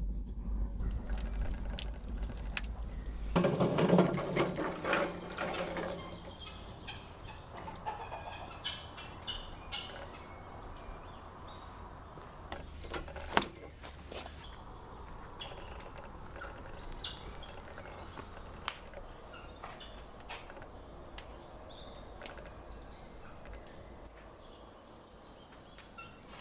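Poultry calling, with one loud call about four seconds in, then scattered chirps and small clicks.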